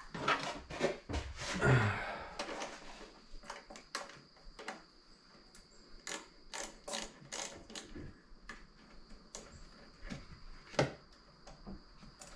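Irregular clicks, taps and knocks of hands working a hose clamp and intake coupler onto the turbo inlet in a car's engine bay, with one sharper knock near the end.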